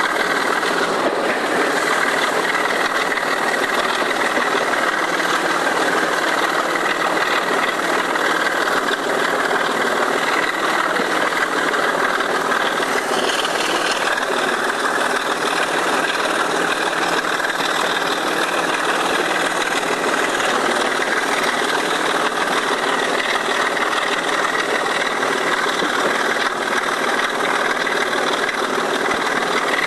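Sulzer 6LDA28 six-cylinder diesel engine of a BR Class 25 locomotive working hard at full power on a climb, heard from the locomotive's side window as a loud, steady drone with mechanical rattle.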